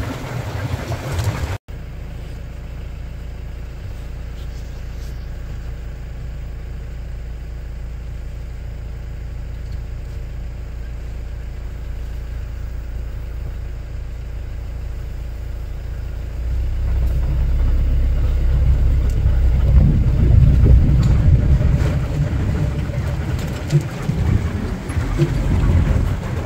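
Open safari jeep's engine running low and steady. About two-thirds of the way through it grows louder and rougher as the jeep drives along a forest track.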